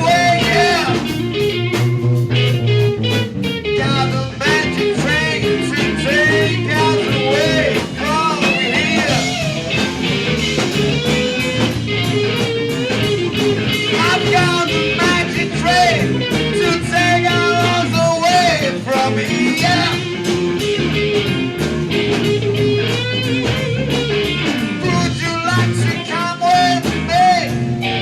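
Rock band recording with a bluesy electric guitar line bending up and down over a steady bass and rhythm, playing loudly and continuously.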